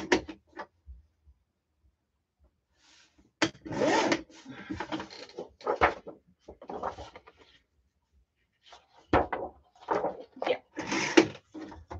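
Two bouts of rubbing, rustling and light knocking from objects being handled, with a quiet pause before and between them.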